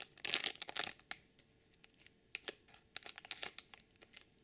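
Small plastic blind bag crinkling and tearing as it is pulled open by hand, with a dense burst of crackling in the first second and scattered crinkles later on.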